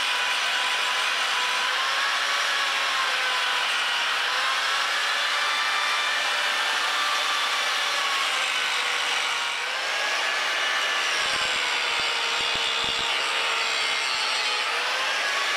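Handheld angle grinder grinding down a weld bead on a steel plate: a steady grinding noise with a whine that wavers up and down in pitch as the disc is pressed into the metal.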